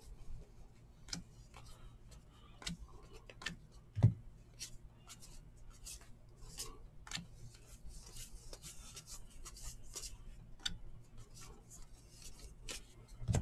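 Stack of baseball trading cards being flipped through by hand: irregular flicks and rubs of card stock as each card slides off the front of the stack, with a single thump about four seconds in.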